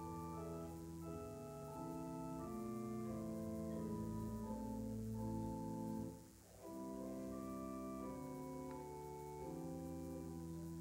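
Offertory music played on a keyboard instrument: slow, held chords that change about every second, with a short break between phrases about six seconds in.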